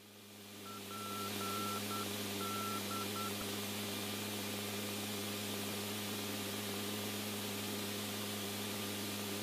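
Open radio channel hiss and steady electrical hum, the hiss fading up over the first second. In the first few seconds, a string of about seven short beeps of one pitch and uneven length.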